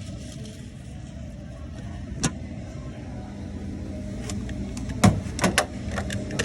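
Refrigerated table's cooling unit running with a steady low hum. A sharp knock comes about two seconds in, and a quick cluster of knocks and clicks follows near the end.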